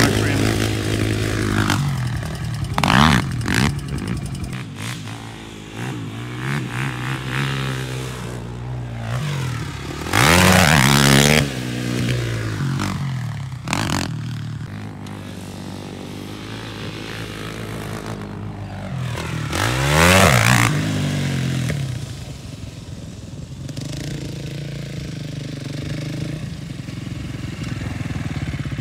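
KTM 450 SX quad's single-cylinder four-stroke engine revving hard and letting off again and again as it is ridden around a motocross track. It is loudest as the quad passes close, about ten seconds in and again about twenty seconds in, and drops away between passes.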